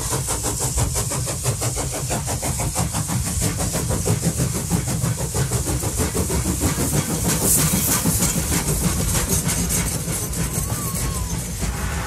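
A train running: a fast, even beat over a steady low rumble.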